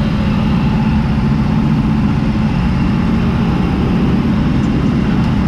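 John Deere 3350 tractor's diesel engine running steadily under load, heard from inside the cab while it pulls a Zmaj 222 corn picker through the corn.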